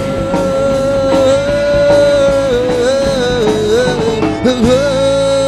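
Live band with keyboard, bass guitar and drums playing the closing bars of a song, a male singer holding the final note with vibrato. About three seconds in the note breaks into a few quick turns, then settles and is held again.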